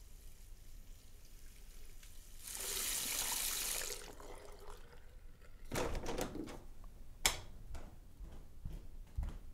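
Water running from a tap for about a second and a half, then cut off. A few seconds later come a handful of sharp clicks and knocks.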